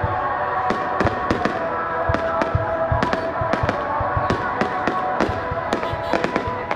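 Aerial firework shells bursting in a rapid, irregular string of bangs, two or three a second.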